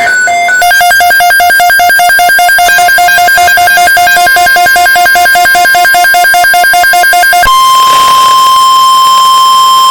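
Emergency Alert System alert signals. First comes fast, rapidly pulsing electronic beeping that alternates between a lower and a higher pitch. About seven and a half seconds in it changes to a single steady, loud alert tone.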